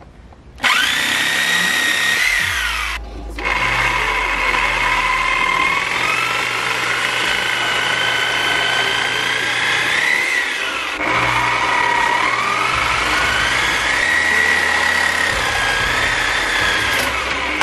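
Cordless power saw running as it cuts through PVC pool plumbing. Its motor whine rises and falls in pitch with the load, stops briefly about three seconds in and again around eleven seconds, then carries on.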